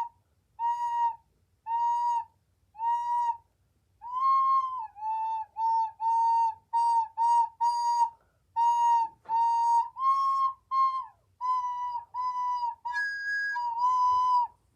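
A recorder played loudly, sounding nearly the same high note over and over. First come four evenly spaced notes about a second apart, then a quicker run of short notes with slight pitch wobbles. Near the end, one note has a shriller, squeakier tone.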